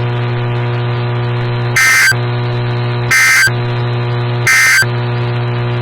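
Three short, identical chirps of an Emergency Alert System SAME data signal, sent about once every 1.4 seconds: the end-of-message code that closes a broadcast warning. A steady hum runs underneath.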